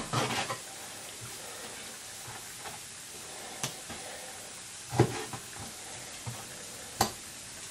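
Meat cleaver chopping chicken on the bone against a plastic chopping board: three sharp chops, the first lighter, coming in the second half about one and a half to two seconds apart.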